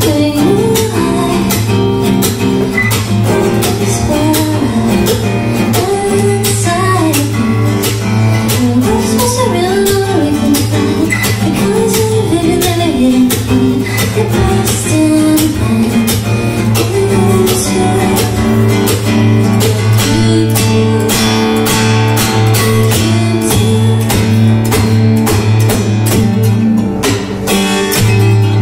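Acoustic guitar strummed steadily in a live solo song, with a singing voice over roughly the first half.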